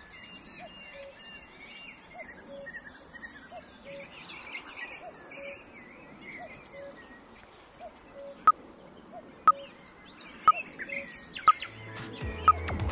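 Forest ambience of several birds chirping and singing over a soft hiss. Near the end, five short sharp beeps, one a second, count down the last seconds of the break timer.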